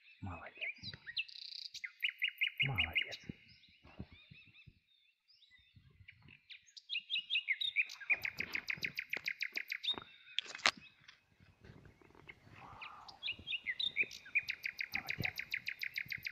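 A small songbird singing a fast trilled song three times, each phrase a couple of seconds of rapidly repeated notes. Under it are rustling and soft footfalls in dry grass and leaves, and one sharp click partway through.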